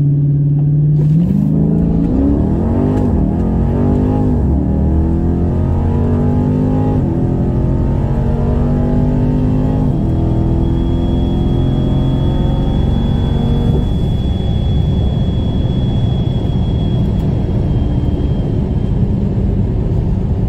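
Car engine at full throttle on a quarter-mile drag-strip pass, heard from inside the cabin: revs climb and drop back at each of several upshifts. The driver lifts off about fourteen seconds in and the car coasts with a low rumble, under a faint steady high whine.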